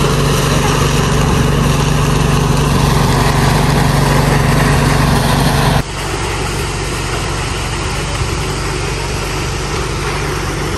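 Small engine of a motorized rice thresher running steadily under a constant rushing noise. A little over halfway through the sound drops suddenly in level and carries on quieter.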